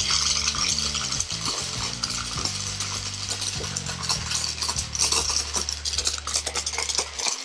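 Bosch 300 W hand blender with its chopper bowl running, its motor humming while jelly beans rattle and clatter against the bowl and blade. The motor cuts off just before the end.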